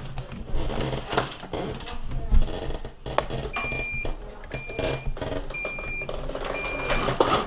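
Powered wheelchair moving with its steady motor hum and a few knocks and rattles, the loudest about two and a half seconds in. From about halfway in, a short high beep sounds about once a second, the chair's reversing warning as it backs up.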